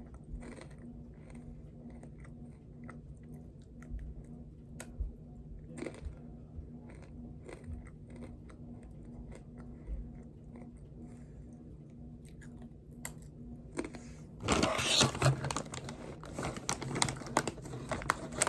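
A person chewing a mouthful of a chocolate snack, with small wet clicks and crunches over a faint steady hum. Near the end a much louder rustling noise sets in.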